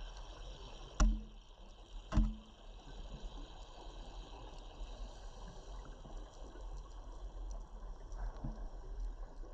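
Steady underwater hiss and wash of the sea, recorded underwater, with two sharp knocks about a second and two seconds in, each leaving a brief low ring, and a fainter knock near the end.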